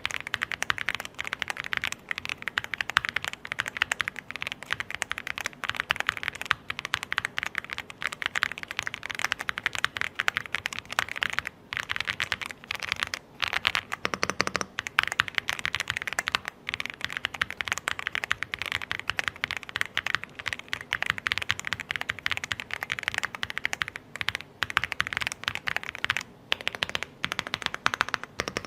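Aula L99 mechanical keyboard being typed on quickly: a dense, continuous run of key clacks, broken by a couple of short pauses.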